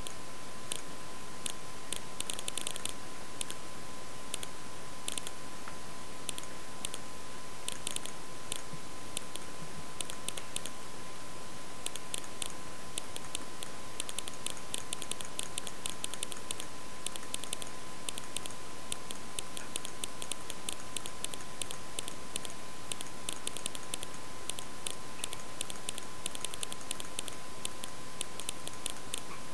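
Irregular clicking of a computer mouse and keyboard in quick clusters, thicker in the second half, over a steady high-pitched tone.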